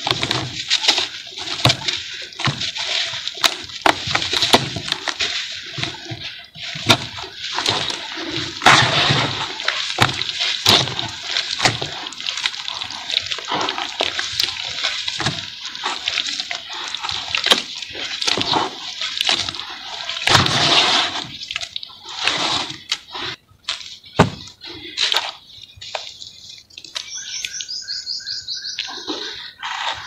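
Dry sand-and-cement chunks crumbled by hand into a basin of water, crackling and splashing as the pieces break and fall in, then wet cement slurry squelched and sloshed between the hands. Near the end it quietens and a high chirping call sounds in short repeated notes.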